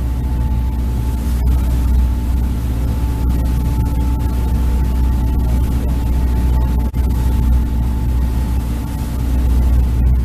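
Boat engine running steadily at constant speed: a deep, even hum with a faint steady whine above it.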